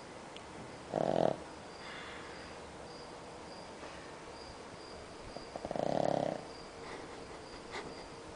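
A sleeping pug snoring: a short snore about a second in, then a longer one around six seconds in.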